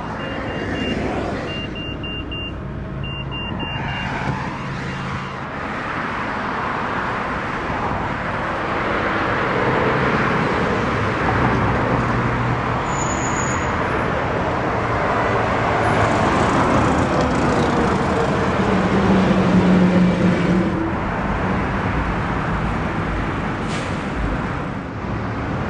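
2011 Mitsubishi Lancer Sportback's 2.0-litre inline four-cylinder idling, heard from outside the car under a steady wash of road-traffic noise that swells in the middle. A few short high beeps sound in the first few seconds: the keyless-entry chime warning that the proximity key has left the car.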